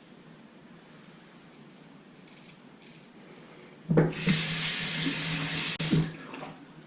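Bathroom sink tap turned on, water running into the sink for about two seconds, then shut off.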